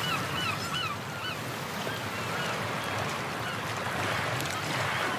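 Waves washing with a steady surf hiss, and birds honking in quick repeated calls, thickest in the first second, then sparser and fainter.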